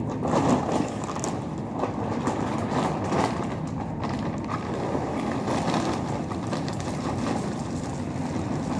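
Stray dogs eating from the ground close by, with scattered short crunches and clicks over a steady rough noise. In the second half, a plastic food bag rustles as it is carried in and emptied among them.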